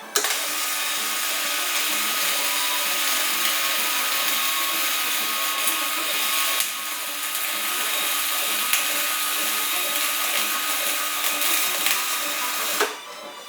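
Stick-welding arc running with a steady crackling hiss for about thirteen seconds, breaking off briefly about halfway and stopping suddenly near the end.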